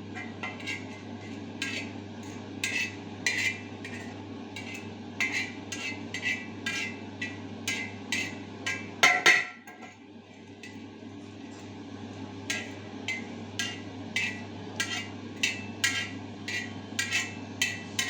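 Whole cloves being stirred and dry-roasted on a griddle (tava), the utensil clinking and scraping against the pan in short irregular ticks, two or three a second, with one louder clank about nine seconds in. A steady low hum runs underneath.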